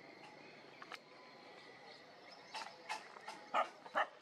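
Dog giving a quick run of short, sharp barks starting about two and a half seconds in, the last two loudest.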